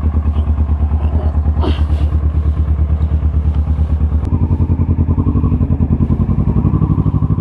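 Kawasaki ER-6n's parallel-twin engine running at idle just after a cold start, with an even pulsing beat. About four seconds in the engine note changes as the motorcycle pulls away slowly.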